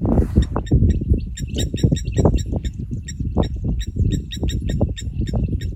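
Birds calling in quick, repeated high chirps, several a second, over a loud, uneven low rumble with frequent thumps.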